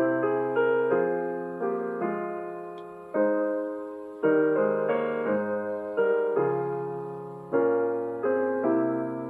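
Gentle solo piano music: slow chords struck about once a second, each left to ring and fade.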